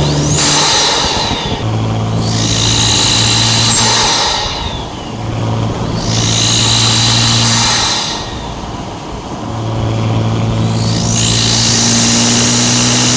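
Audi SQ5's turbocharged engine running with a steady drone. About every three to four seconds, a burst of turbo whistle and hiss swells and fades, four times in all.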